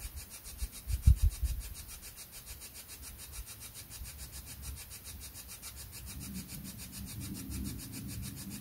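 Spirit box sweeping through radio stations: a fast, evenly chopped hiss of static. A few low thumps come about a second in.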